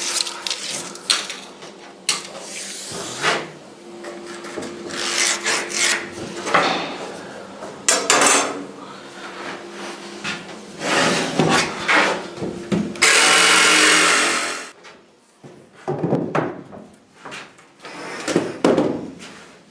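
Chipboard floor sheets being handled, slid and dragged over the timber floor and trestles: a run of irregular scrapes and rubs. About thirteen seconds in there is one loud rushing noise lasting nearly two seconds.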